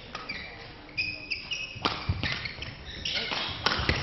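Badminton rally: a shuttlecock struck by rackets several times with sharp cracks, and shoes squeaking on the court floor about a second in.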